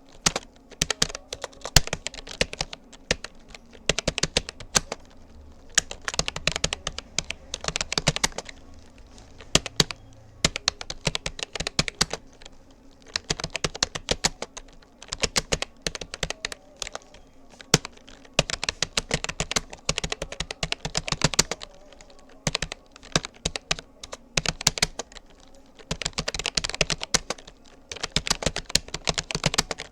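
Touch typing on a Rapoo computer keyboard: rapid runs of key clicks broken by short pauses.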